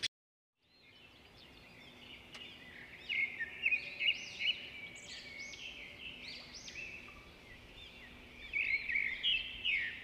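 Small birds chirping in quick, repeated rising-and-falling notes. The sound fades in from silence about a second in and is busiest about three seconds in and again near the end.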